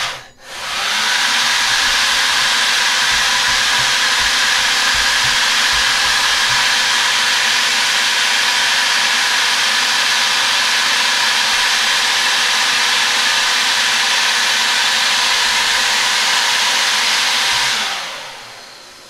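Small electric motor, driven through an ESC, spinning a 3D-printed propeller near full throttle: a loud, steady whir of motor and rushing air. It picks up after a short dip near the start and winds down about a second before the end as the throttle is cut back.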